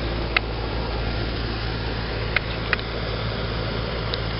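Carrier central air conditioner's outdoor condensing unit running: a steady whoosh of the condenser fan over a low hum, with a few short sharp clicks.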